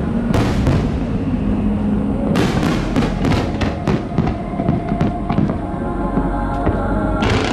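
Aerial fireworks bursting and crackling in quick succession, over music with held notes. The crackling thickens into a dense barrage about two seconds in and again near the end.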